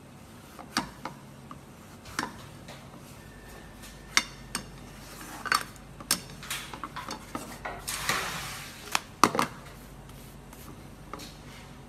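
Scattered clicks and knocks of a spatula and utensils against a nonstick frying pan, with a brief hiss about eight seconds in.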